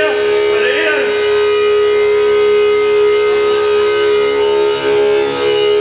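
Death metal band playing live, with one long, steady held note, likely from the guitar, ringing through. There is a shouted vocal about a second in and a few cymbal crashes in the first two seconds.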